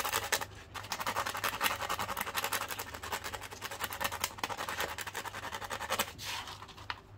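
Small metal contact from a circuit breaker rubbed back and forth on sandpaper in rapid short strokes, scraping off the blackened burn marks that cause its intermittent contact. The rubbing pauses briefly about half a second in and stops about six seconds in.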